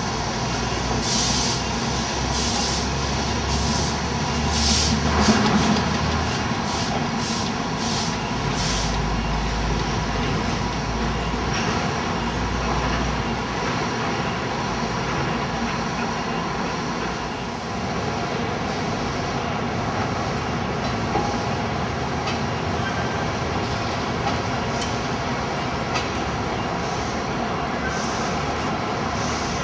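Chinese C2 class 0-8-0 narrow-gauge steam locomotive getting under way: sharp exhaust beats come quicker and quicker over the first nine seconds or so, then stop as steam is shut off, leaving a steady rushing noise as the engine rolls on.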